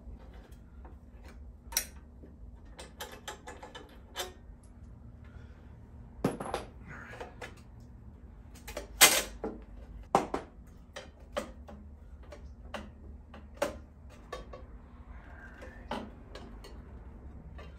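Irregular clicks and clinks of small tools and metal parts being handled during work on a motorcycle's handlebar area, with one louder knock about nine seconds in.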